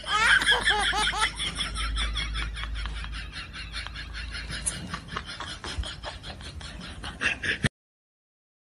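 High-pitched laughter: a run of quick laughing bursts that cuts off suddenly near the end.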